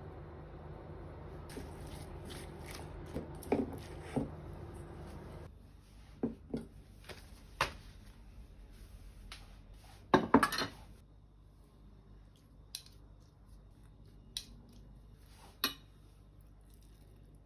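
Kitchen handling sounds: scattered short clinks and taps of utensils against a stainless steel bowl and dishes, with a louder burst of clatter about ten seconds in. A steady low hum under the first few seconds cuts off suddenly about five seconds in.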